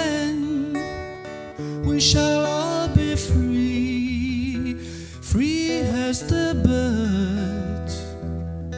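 Slow gospel-country song in a passage with no sung words: acoustic guitar strumming under a sliding, wavering melody line.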